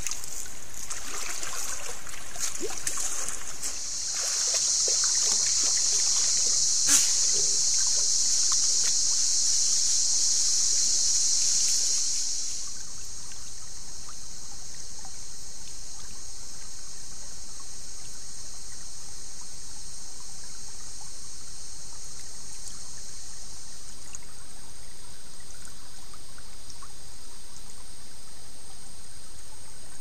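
Rainforest creek ambience: a steady high-pitched insect drone over trickling water. The drone is louder for the first dozen seconds, then drops to a softer steady level. There is a single sharp knock about seven seconds in.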